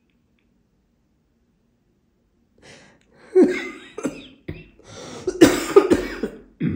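African grey parrot making a run of short, raspy vocalizations, starting about three seconds in and loudest near the end.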